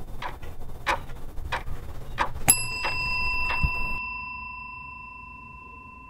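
A clock ticking about one and a half times a second over a low rumble. About two and a half seconds in, a single elevator chime dings and rings on, fading slowly, and the ticks stop soon after.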